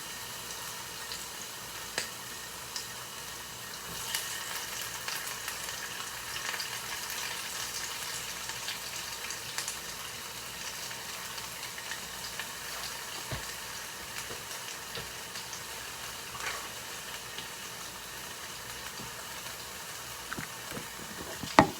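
Pre-cooked shrimp sizzling steadily in a frying pan, with a few short knocks of a utensil against the pan, the loudest near the end.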